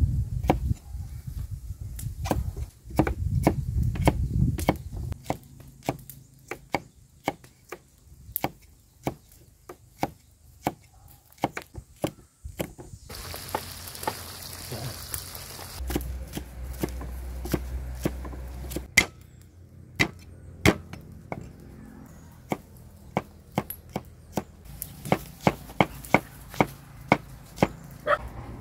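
Large kitchen knife chopping carrots, onions, garlic and spring onions on a round wooden chopping board: a run of sharp knocks as the blade strikes the wood, about two a second, quickening near the end.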